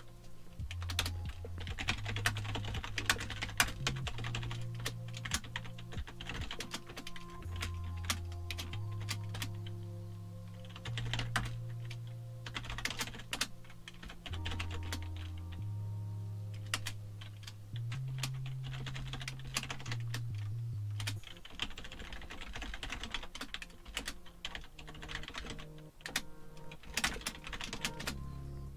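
Typing on a computer keyboard in irregular bursts of keystrokes. Soft background music with slow, held bass notes plays underneath.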